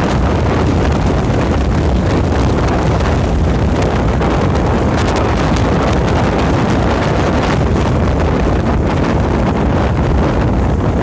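A moving car's steady road and wind noise: a dense, even rumble of tyres and air with no change in pace.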